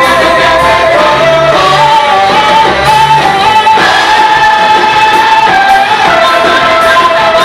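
A worship group singing a praise song with instrumental backing, several voices holding long notes together.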